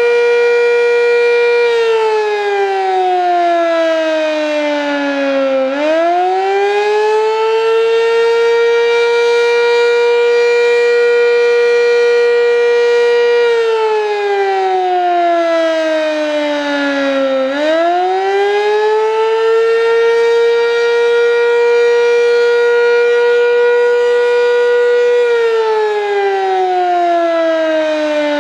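Sentry 7V8-B outdoor warning siren sounding loud during a test. Its howl holds a steady pitch, then sags to a lower pitch over about four seconds and swoops back up; this happens twice, and a third drop begins near the end.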